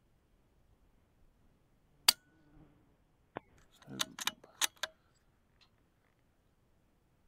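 A single shot from a suppressed .22 LR bolt-action rifle (Ruger Precision Rimfire) firing subsonic CCI Standard Velocity ammunition: a short, sharp pop with no supersonic crack, about two seconds in. About a second later a quick run of metallic clicks and clacks as the bolt is worked to chamber the next round.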